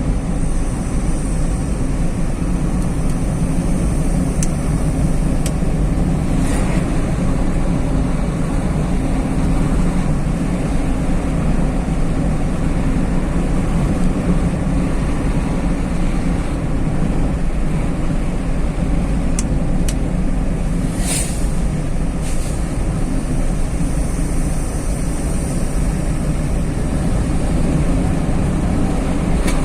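Car driving on a highway, heard from inside: steady engine and tyre road noise.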